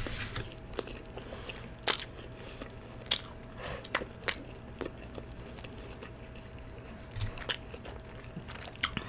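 A person chewing food with wet mouth smacks and clicks at an uneven pace, the sharpest about two, three and four seconds in and again near the end.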